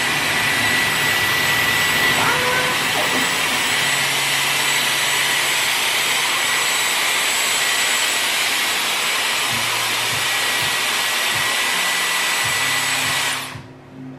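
Dyson Airwrap hair styler with its curling barrel running, blowing air steadily: a loud even rush of air with a faint high motor whine in it. It cuts off suddenly near the end.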